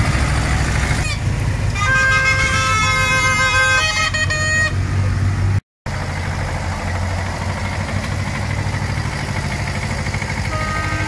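Vintage tractor engines running as the tractors drive past. About two seconds in, a short tune of tooting, horn-like notes sounds for a couple of seconds. The audio cuts out abruptly near the middle, and another tractor engine runs on after the cut.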